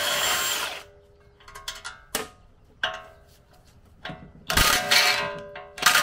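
DeWalt cordless impact wrench with a 14 mm socket on an extension, running at full speed in three short bursts to back out the lower ball joint bolts from a steering knuckle. Between the bursts there are a few sharp clicks.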